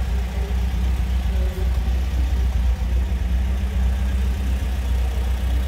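A steady low mechanical drone with a constant pitch, loud and unchanging.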